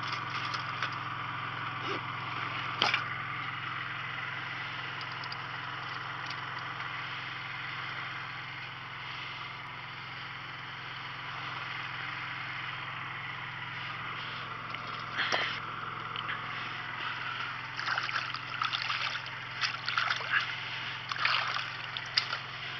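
Hands splashing and rinsing in the water over a steady low mechanical hum, with a couple of sharp knocks earlier. The splashes come in quick, uneven bursts over the last few seconds.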